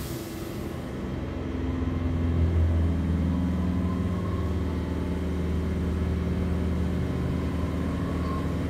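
Class 323 electric multiple unit heard from inside the carriage as it accelerates away from a station: a low rumble with a steady electric drone from the traction equipment, growing louder over the first two or three seconds and then holding steady.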